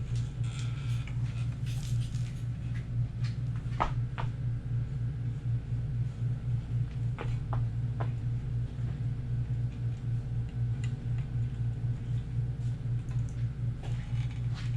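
A steady low hum with a few light, brief metallic clicks and taps, about four seconds in and again around seven to eight seconds in.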